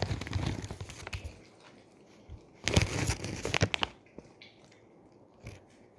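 An Alaskan Malamute crunching food: a burst of crackly crunching at the start, and another short run of crunches about three seconds in.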